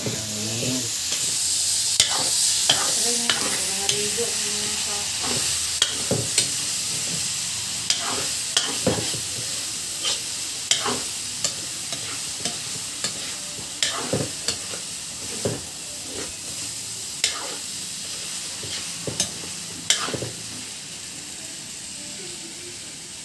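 Fresh egg noodles sizzling in a wok while a metal spatula stirs and tosses them, clacking and scraping against the pan about once or twice a second. The sizzle eases off toward the end.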